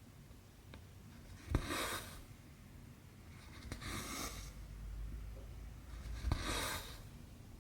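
Cotton embroidery thread drawn through cross stitch fabric, three short rasping swishes about two and a half seconds apart, with a light click from the needle before some of them.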